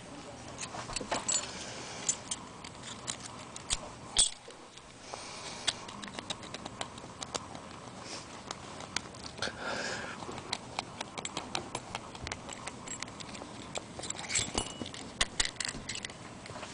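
Small metal clicks and clinks, irregular, as a Master No. 5 padlock is taken apart by hand and its bible, the pin housing, worked free, with a short scrape about ten seconds in.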